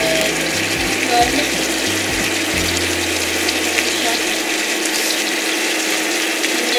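Chicken adobo simmering in a frying pan, a steady bubbling hiss as the soy-vinegar sauce cooks down.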